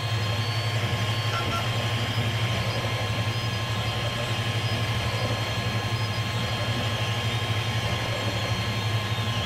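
TEVO Tornado 3D printer printing at 70 mm/s: its stepper motors buzz with fast, fluttering moves of the print head over a steady hum, with several constant whining tones on top.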